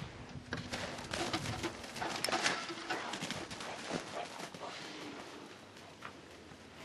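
Footsteps crunching in deep snow, a quick run of crisp crunches that thins out and fades over the last couple of seconds.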